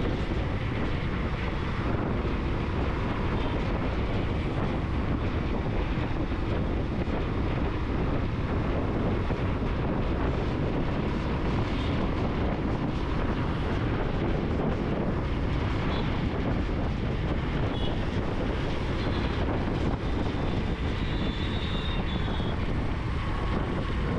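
Steady wind rush and low road rumble of a moving motorcycle, heard through a helmet-mounted GoPro Hero12's microphone.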